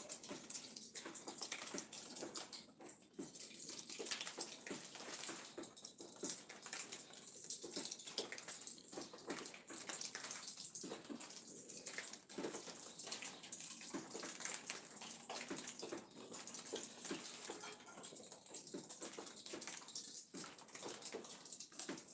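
Light rain pattering and dripping on leaves and the ground: many irregular small ticks over a steady high hiss.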